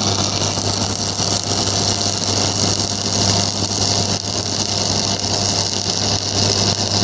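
Stick (manual arc) welding: the electrode's arc crackles and hisses steadily while a continuous bead is laid without lifting the rod. A constant low hum runs underneath.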